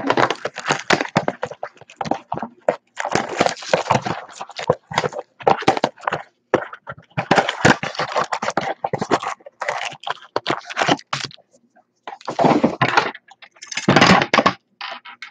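A 2016 Donruss Optic baseball card blaster box and its foil packs being torn open by hand: a long run of crackling rips and crinkles, with two louder bursts near the end.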